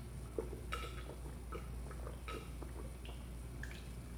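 A person gulping a drink from a plastic cup, with several short swallows about a second apart.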